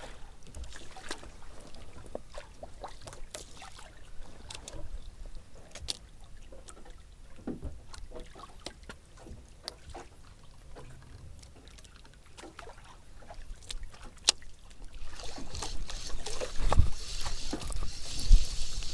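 Small boat on the water: water lapping against the hull, with scattered small clicks and knocks. About fifteen seconds in, it turns into louder rushing water or wind noise with low thumps.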